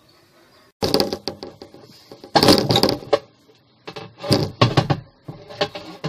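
Plastic pulsator of a Sharp twin-tub washing machine being pried up at its edge and lifted off its shaft: plastic scraping, creaking and clattering in four loud, crackling bursts.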